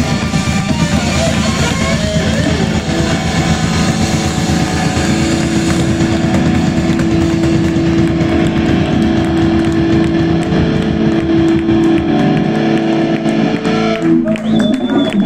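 Live rock band playing loud, with distorted electric guitar, bass guitar and drum kit, and a long held guitar note through the middle. Near the end the playing thins out briefly and a short high whine sounds.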